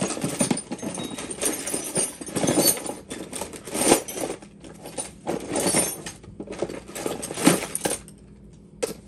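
Metal hand tools clinking and knocking against each other in a quick, irregular clatter, which stops about eight seconds in, with one last clink near the end.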